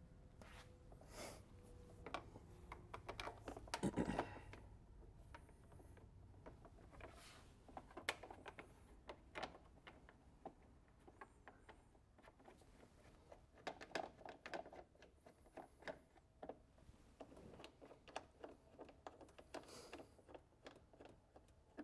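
Faint, scattered clicks, taps and rattles of hands working parts in a tractor's engine bay with the engine off, with a louder knock about four seconds in.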